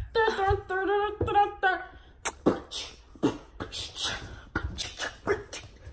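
A girl's voice sings a few held notes, then switches about two seconds in to a string of short, breathy percussive mouth sounds, about three a second, like beatboxing.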